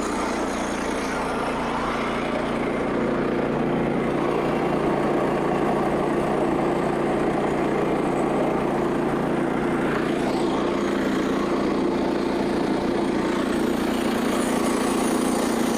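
Small gas engine of a Frontier OS27 bandsaw mill running steadily while the Ripper 37 band blade cuts through a small red oak log on power feed. It gets slightly louder about three seconds in.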